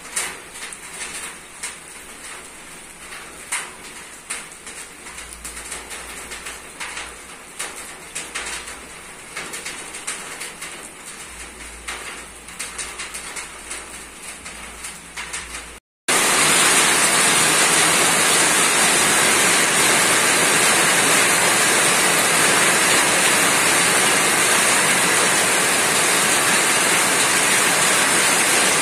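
Rain on a roof: scattered drops tapping irregularly, then after a brief break a loud, steady hiss of heavy rain.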